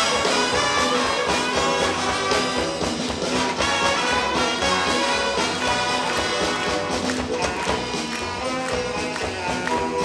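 Variety brass band (estrada wind orchestra) playing an instrumental passage: brass and saxophones over a drum kit keeping a steady beat.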